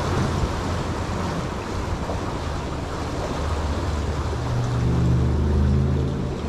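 Ocean surf washing against jetty rocks, with wind on the microphone. A low steady hum like a distant engine comes up about halfway through and grows stronger near the end.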